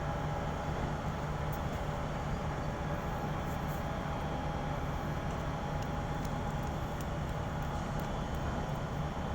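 Steady low mechanical drone of a ship's running machinery, with a constant hum and a fainter higher tone.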